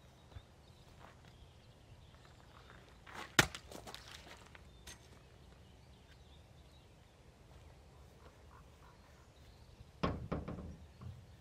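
A single sharp axe strike into a log, a thunk followed by about a second of crackle. Near the end comes a brief cluster of knocks as the splitting tools are handled.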